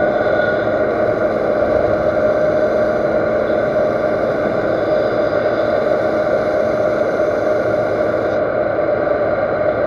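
Metal lathe running steadily, spinning a 4140 steel shaft while emery cloth is held against it to sand the bearing seat to final size: a constant machine tone with a continuous scraping hiss of abrasive on steel.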